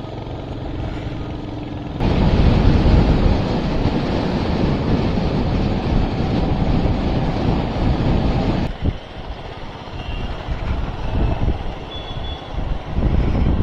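Wind rushing over the microphone of a moving rider, mixed with road and traffic noise. The wind rush is heavy from about two seconds in and drops off sharply a few seconds later, leaving a gusty rumble.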